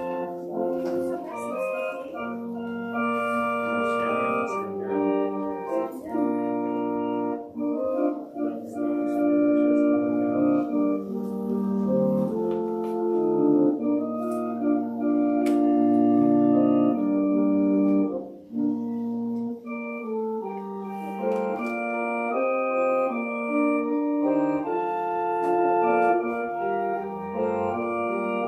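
Organ music: slow, sustained chords over held low pedal notes, with a brief break between phrases about eighteen seconds in.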